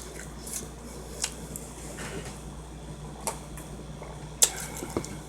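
Mouth sounds of someone chewing sushi close to the microphone: a handful of short, wet clicks and smacks spread about a second apart, over a faint steady hum.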